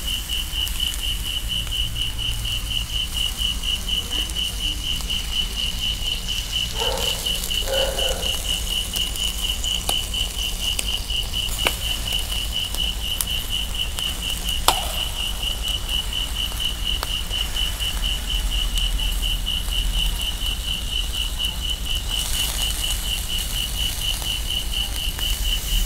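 Burger patties and chicken sizzling on a charcoal grill, with a few sharp pops, over an insect's steady, rapidly pulsing high trill.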